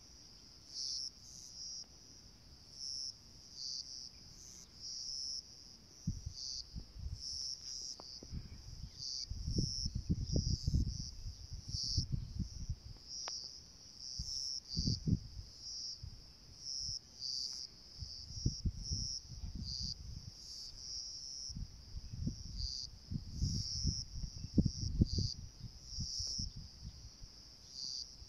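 Insects chirping in a high band, in short repeated bursts. Irregular low rumbles come and go from about six seconds in.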